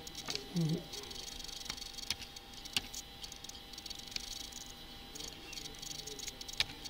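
Sparse single clicks of a computer keyboard and mouse, spaced a second or more apart, over a faint steady hiss with a thin steady hum. A brief low vocal sound comes just under a second in.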